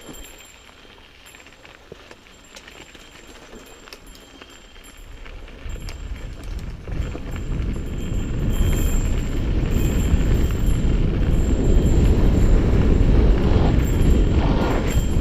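Mountain bike descending a dirt trail at speed: wind rushing over the bike-mounted microphone and the bike rattling over the dirt. It is fairly quiet with a few light clicks at first, then from about five seconds in it builds to a loud, steady low rumble as the bike picks up speed.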